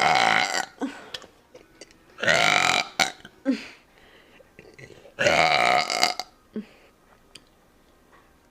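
A person burping loudly three times, each burp lasting under a second, spaced about two and a half to three seconds apart.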